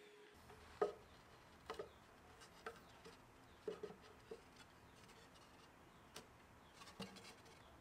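Faint, scattered light taps and knocks of thin sapele boards being handled and dry-fitted into the dados of a small case, about a dozen in all, the loudest about a second in.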